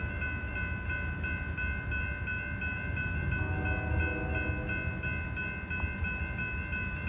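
Approaching Amtrak Sunset Limited passenger train rumbling steadily, with a warning bell ringing at a quick, even beat. About three seconds in, a faint sustained chord sounds for a couple of seconds, like a distant train horn.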